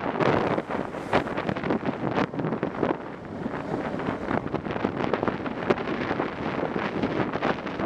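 ATV being ridden over a rough grassy track: wind buffeting the helmet-mounted microphone over the running machine, with frequent small knocks and rattles from the bumps.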